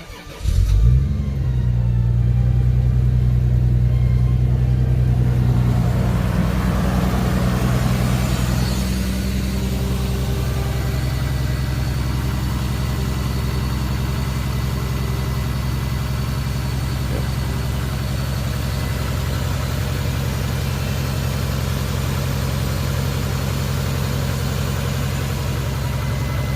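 Toyota Supra Mk III's 7M-GTE turbocharged inline-six starts about a second in and runs at a raised idle. It settles to a slightly lower steady idle around nine seconds in. It breathes through an HKS Silent Hi-Power aftermarket exhaust.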